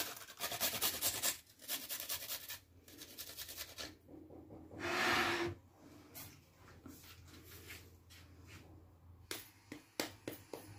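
Garlic cloves being grated on a metal flat hand grater: quick rasping strokes, with a louder scraping rush about halfway through and a few sharp knocks near the end.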